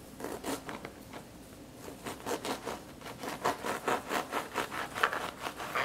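Kitchen knife sawing back and forth through the crisp crust of a Vietnamese baguette, with quick rasping strokes about four or five a second that grow louder from about two seconds in.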